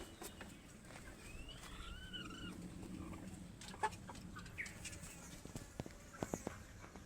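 Domestic chickens clucking, with one drawn-out, wavering call about a second in and a few sharp clicks later on.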